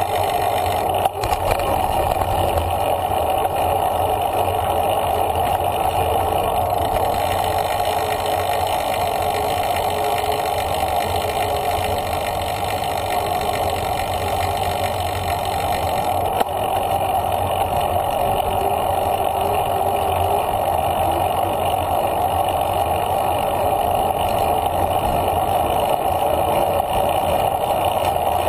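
Steady wind and road noise from riding a bicycle on a paved trail, heard on a bike-mounted action camera: wind on the microphone and tyre hum on the pavement. A sharp click comes about a second in and another about halfway through.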